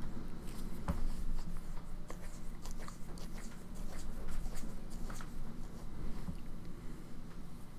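Scattered light clicks and taps of a wrench, bolts and the alternator and its cover being handled at a motorcycle engine, over a steady low hum.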